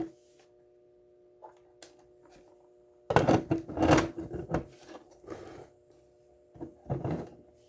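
A motorized display turntable running with a steady hum. Over it come clattering, knocking handling sounds as things are set down and moved, loudest about three seconds in and again near the end.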